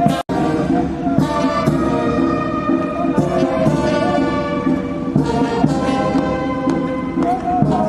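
Brass band music playing, with sustained brass chords; the sound cuts out for an instant about a quarter second in.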